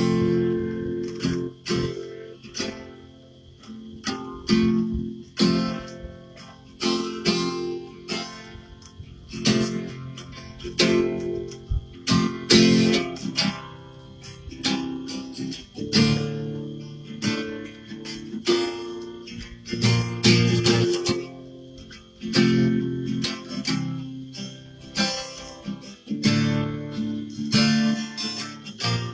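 Acoustic guitar strumming chords in a loose, rhythmic instrumental passage, played without a pick.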